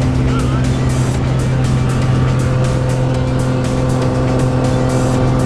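Steady drone of a small jump plane's engine heard inside the cabin, with background music over it.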